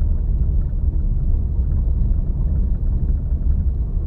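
Steady low rumble inside the cabin of a Hyundai HB20 1.6 automatic driving along a paved road: engine and tyre noise.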